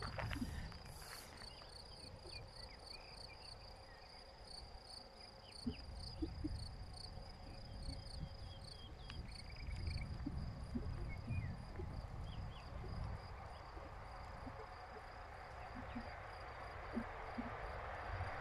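An insect, cricket-like, chirping in rapid, even high pulses, with wind gusting on the microphone and a few short bird chirps. Near the end a low rumble slowly builds as a train approaches.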